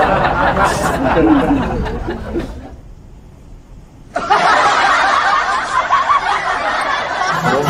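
Snickering, chuckling laughter. It dies away over the first two or three seconds, then breaks out again abruptly just after four seconds in.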